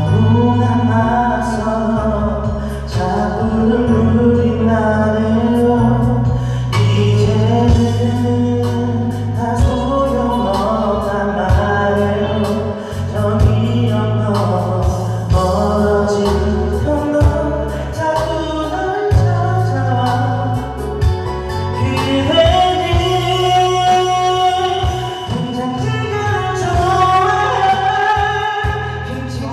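A song playing: a sung vocal melody with long held notes over an instrumental backing with a bass line that changes chord every couple of seconds.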